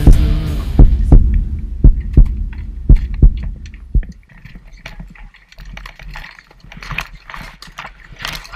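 Deep double thumps like a heartbeat, about once a second, from the soundtrack, stopping about four seconds in. After that comes the fainter rattle and crunch of a mountain bike rolling over a rocky dirt trail.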